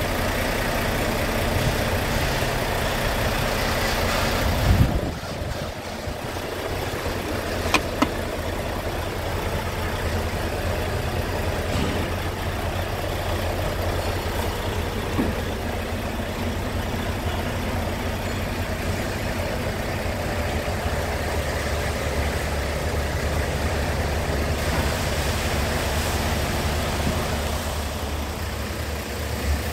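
Scania R tractor unit's diesel engine idling steadily. About five seconds in there is a thump and the sound turns duller, as heard from inside the cab, with a few short sharp clicks after it.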